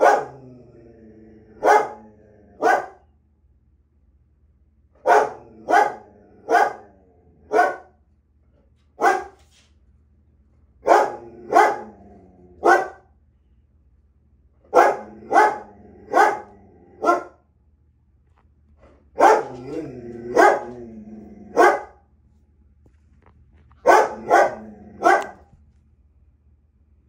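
A Belgian Malinois barking at its own reflection in a mirror, as if at another dog. Short loud barks come in bursts of one to four, about twenty in all, with low growling between barks at the start and again about two-thirds of the way through.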